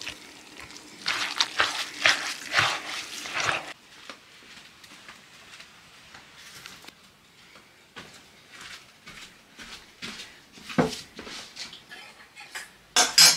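Sarmale filling of minced meat and rice being stirred and mixed by hand, with rustling strokes for the first few seconds and then quieter handling. There is a knock about eleven seconds in and a sharp clatter of dishware near the end.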